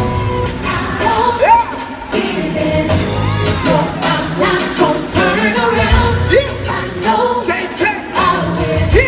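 Live gospel music: a band with a strong bass and singers' voices sliding through wordless runs.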